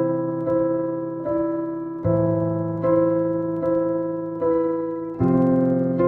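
Background music on piano or electric piano: a slow line of single notes struck about every 0.8 s, each fading away, over sustained low chords that change twice.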